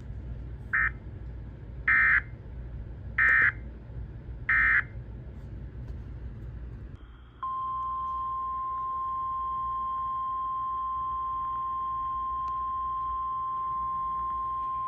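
NOAA Weather Radio alert tones: short bursts of warbling data tones over a low hum, three of them about 1.3 s apart after a brief first one, marking the end of the warning message. About 7 s in, a steady 1050 Hz warning alarm tone starts and holds, announcing the next warning.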